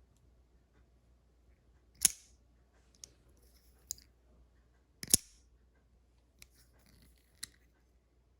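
Boker automatic pocket knife firing its blade open with two loud, sharp snaps about 2 and 5 seconds in, with fainter clicks between as the blade is closed and locked again.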